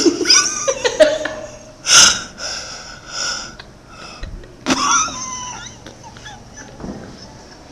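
Women laughing in breathy bursts, with short voiced squeals among them. The loudest burst comes about two seconds in, and the laughter dies down over the last couple of seconds.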